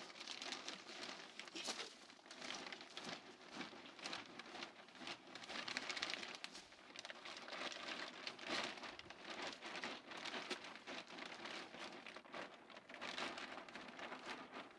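Black plastic silage tube crinkling and crackling as a man treads chopped Sugar Graze down inside it to pack the silage tight. It makes a continuous, irregular rustle of many small crackles.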